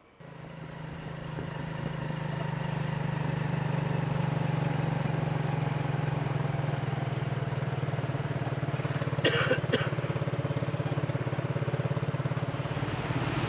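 Motorbike engine of a tuk-tuk running steadily on the move, with street traffic around it; it fades in over the first few seconds. Two brief sharp sounds stand out about nine seconds in.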